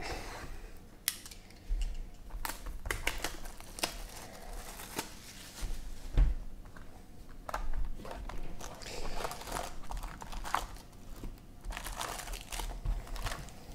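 Plastic wrap and packaging crinkling and tearing as a hobby box of 2015 Bowman Draft baseball cards is unwrapped and its cardboard lid opened. The foil packs inside rustle, with irregular crackles and light clicks.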